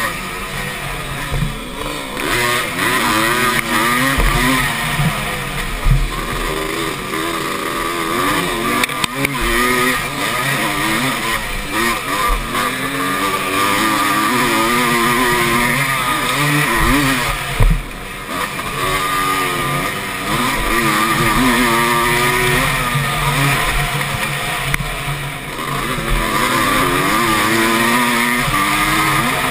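Motocross bike engine revving up and down over and over through the gears at racing speed, under heavy wind noise on the helmet camera's microphone. The throttle shuts briefly about eighteen seconds in.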